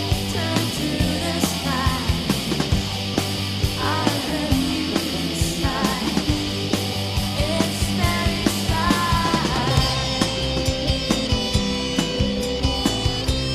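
Band playing rock music with a steady drum beat, electric guitars and a singing voice in phrases. About two-thirds of the way in, the guitars settle into steadier held chords.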